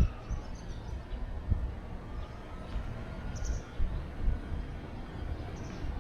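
Low, uneven outdoor rumble with scattered dull thumps, and a short high bird chirp about three and a half seconds in.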